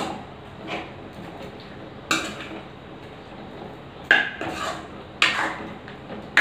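Metal spoon clanking and scraping against a metal kadai as chicken pieces are stirred in it, with a handful of sharp, irregularly spaced knocks.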